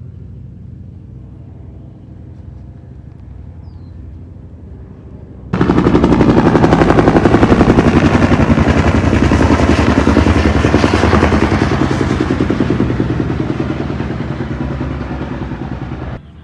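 A low, steady engine hum, then a loud, rapid mechanical rattling that starts suddenly about five seconds in, fades slowly, and cuts off abruptly near the end.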